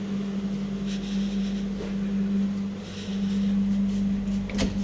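Steady electrical hum of a stationary passenger train carriage's onboard equipment, with a short knock about four and a half seconds in as the gangway door is passed.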